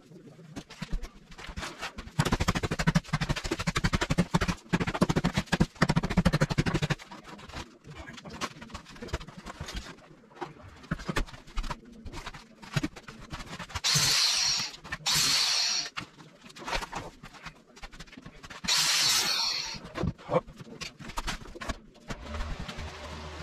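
Ceiling demolition: dense crackling and clattering of breaking material and debris for several seconds, then scattered knocks and two short hissing rushes of loose material falling.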